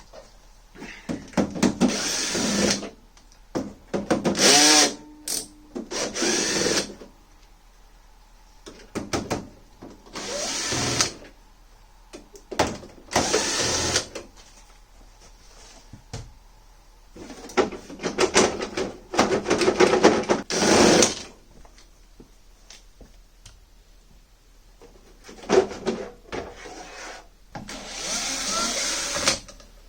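Electric screwdriver or drill run in repeated short bursts, each one to three seconds long with pauses between, driving or backing out screws while a moving-head light fixture is taken apart.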